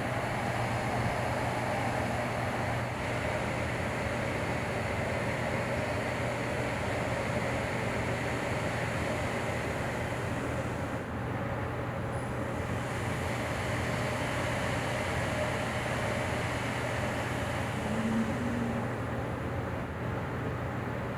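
Steady rumble and hum of a moving vehicle, even throughout with a constant low drone underneath.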